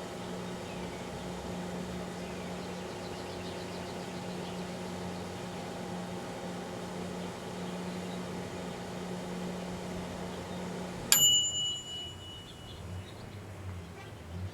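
Microwave oven running with a steady hum, then shutting off about eleven seconds in with a single high-pitched end-of-cycle beep.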